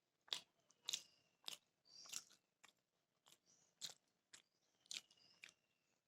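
A person chewing a mouthful of beef biryani close to the microphone: a string of short, sharp, wet mouth clicks and smacks, about two a second.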